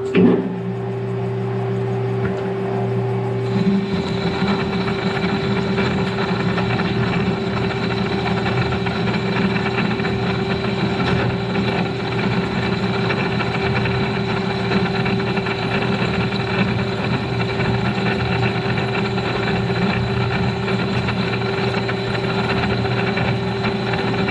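Metal lathe running steadily, its chuck spinning with a steady hum and whine from the motor and gearing, while a tool cuts a steel bushing. About three and a half seconds in a higher ringing note joins the steady running.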